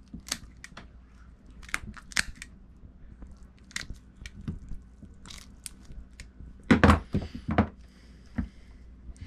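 A blade cutting out a coral trout's backbone: a run of irregular crunches, snips and crackles as it goes through bone and flesh, loudest about seven seconds in.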